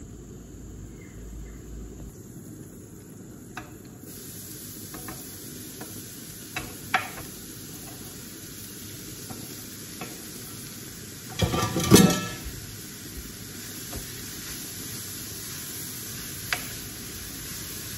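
Zucchini noodles sizzling in olive oil in a pot on the stove while they are stirred with a wooden spoon. A few single knocks of utensils on the pot are heard, and a quick clatter of them about twelve seconds in is the loudest moment.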